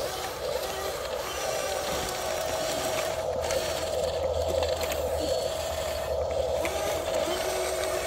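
Electric motors and plastic gearboxes of radio-controlled construction models whining as they run, a steady whine with a lower tone that comes and goes.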